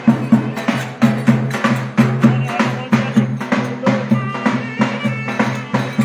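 Live Turkish folk dance music: a clarinet melody over a driving hand-drum beat, with sharp clicking percussion about three times a second.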